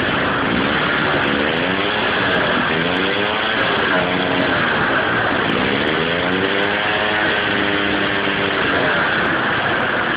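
Small Fichtel & Sachs Wankel rotary engine running loudly on a start attempt, its speed rising and falling several times as it revs.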